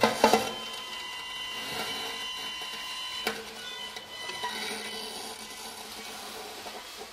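Free improvised music on strings and found objects: sharp struck hits at the start and again about three seconds in, with several steady ringing tones sustaining between them.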